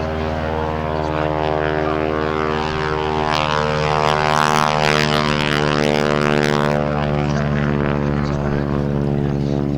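Stearman biplane's radial engine and propeller running steadily in flight, a low droning note that swells and turns hissier for a few seconds in the middle.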